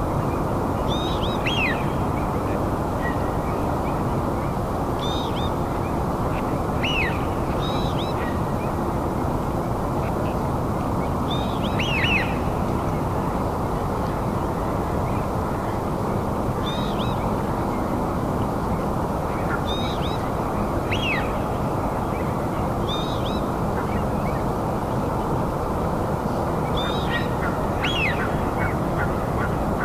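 A bird repeating short calls every second or few seconds, each a quick note that falls sharply in pitch, over a steady low rushing noise.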